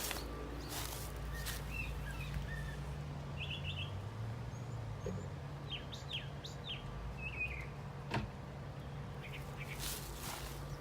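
Birds chirping in short, scattered calls over a steady low hum, with a sharp knock about eight seconds in.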